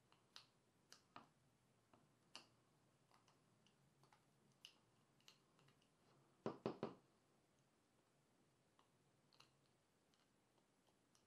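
Faint, scattered clicks, with a quick run of four louder knocks about six and a half seconds in.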